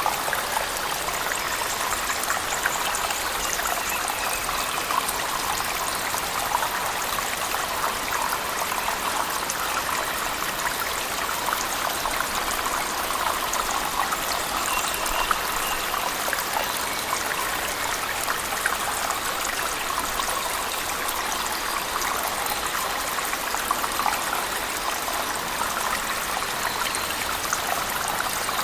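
Cave waterfall mixed with heavy rain: a steady, unbroken rush of falling water with many small splashing ticks through it.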